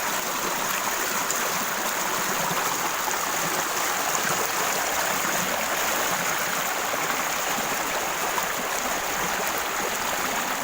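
Steady rush of flowing water, like a stream running over a weir or spillway.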